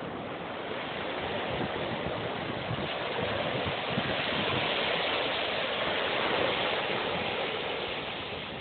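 Small waves washing up onto a sandy beach, a steady hiss of surf that swells to its loudest about halfway through and then eases off.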